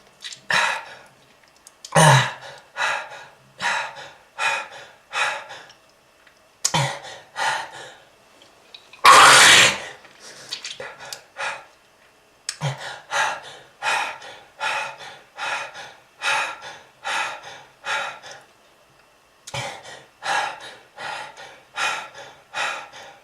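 A smoker's coughing fit: a long series of harsh coughs, about one to two a second, broken by short pauses, with one longer and loudest hacking burst about nine seconds in.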